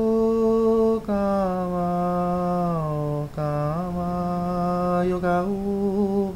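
A single voice chanting a Taíno song in long held notes, each lasting a second or two, with short breaks between them.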